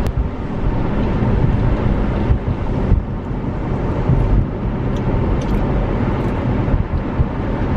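Car driving, heard from inside the cabin: a steady low road-and-engine rumble.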